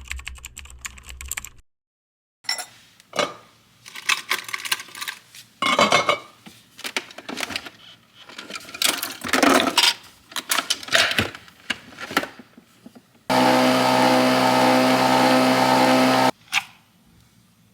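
Irregular clicks and knocks of small objects being handled, then a small electric motor runs steadily for about three seconds and cuts off suddenly, followed by a single click.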